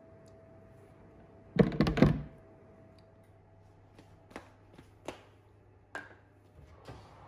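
Kitchen handling noises: a short burst of clattering knocks about a second and a half in, then several light single knocks and clicks, over a faint steady hum that stops about four seconds in.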